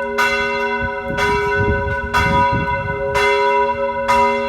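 Church bell tolling for noon, struck about once a second, five strokes, each leaving a long ringing hum that runs on under the next stroke.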